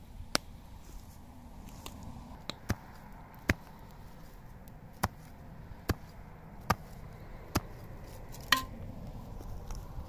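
Sharp, irregular pops and cracks, roughly one a second, from a small campfire of dry sticks burning.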